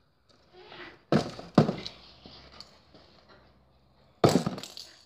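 Three sharp thuds, about a second in, half a second later and near the end, from a cardboard box tipped over onto paving stones and stepped on.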